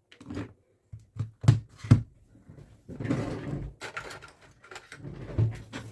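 Handling noise on a workbench: a series of knocks and clatters, the two loudest about a second and a half and two seconds in, with a stretch of rustling around three seconds and another knock near the end, as the Dyson V15 battery pack and tools are picked up and set down to open the case.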